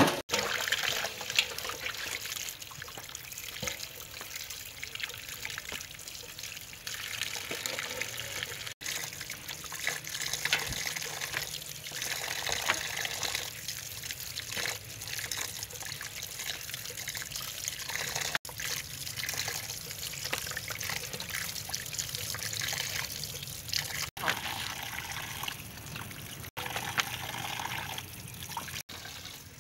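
Water running from a tap and splashing into a basin as raw chicken feet are rubbed and rinsed by hand, with irregular splashes and sloshing. The sound breaks off briefly several times.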